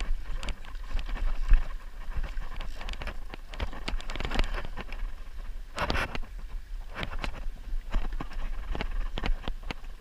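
Wooden rowboat under oars: irregular knocks and splashes from the oars and the gear in the boat, the strongest a little before the middle. A steady low wind rumble on the microphone runs under it.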